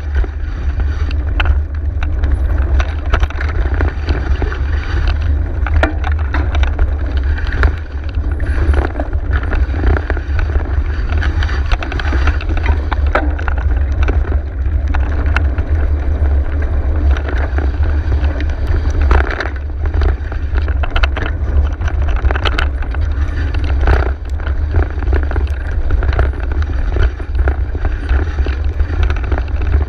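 Mountain bike riding a dirt singletrack: steady wind buffeting on the microphone with tyre noise and frequent clicks and rattles from the bike over bumps.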